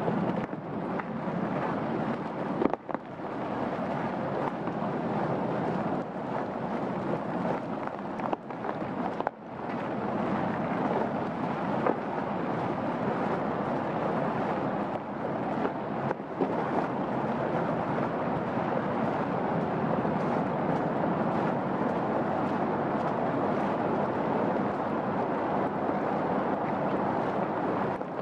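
Steady rain falling on trees and foliage, an even hiss that dips briefly about three seconds in and again about nine seconds in.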